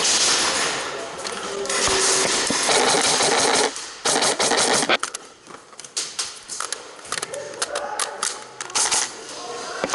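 Airsoft guns firing and BBs striking, a fast, irregular clatter of sharp clicks through the second half. This follows a few seconds of loud rushing noise with what may be shouting.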